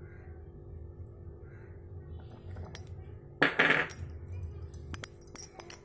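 A wire whisk stirring thick cake batter in a plastic bowl. About three and a half seconds in comes a short loud scrape, then a rapid run of sharp clicks and taps as the whisk knocks against the bowl's side.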